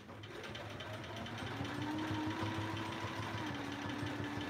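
Domestic sewing machine stitching continuously while quilt layers are guided under its walking foot. Its motor hum speeds up over the first second or so, then runs steady and smooth.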